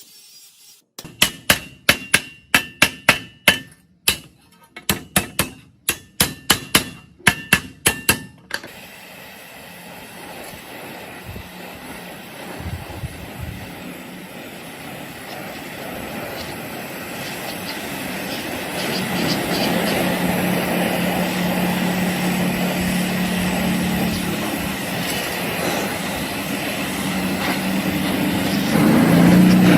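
Metal struck again and again with a hammer: sharp ringing blows, about three a second, for roughly eight seconds. Then a steady mechanical noise, like a power tool running on metal, starts and slowly grows louder, with a low hum joining it about two-thirds of the way in.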